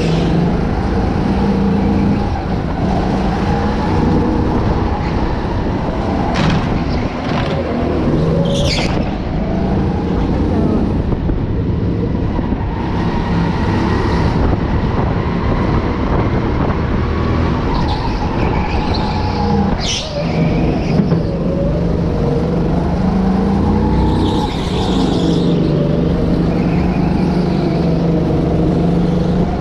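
Go-kart engine heard from on board while lapping, its pitch rising and falling as it accelerates and lifts, with a few sharp knocks.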